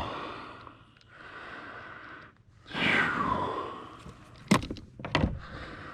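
A loud breathy exhale, like a long sigh of relief, about three seconds in. It is followed by two sharp knocks or clicks about half a second apart.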